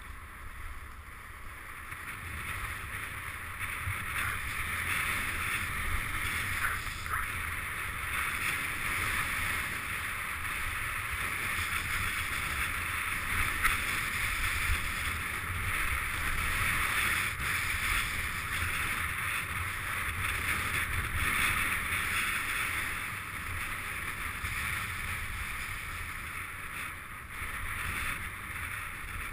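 Skis hissing and scraping over groomed snow on a steady downhill run, with wind buffeting the microphone as a low rumble. The sliding gets louder about four seconds in as speed builds.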